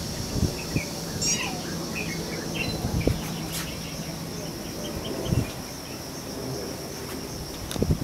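Steady high drone of insects with scattered short chirps; about a second in, a pheasant-tailed jacana gives a brief nasal, mewing call that falls in pitch. A few low thumps are heard.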